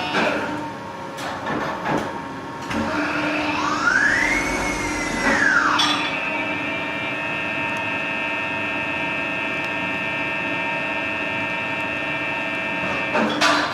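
Gildemeister NEF CT40 CNC lathe running: a whine climbs and falls back over about two seconds a few seconds in, then settles into a steady whine of several tones, with a few sharp clicks near the end.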